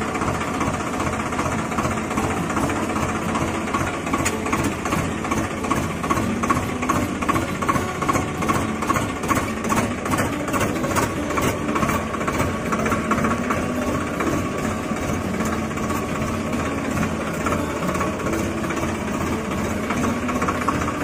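Small engine running steadily at idle with a rapid, even knocking beat.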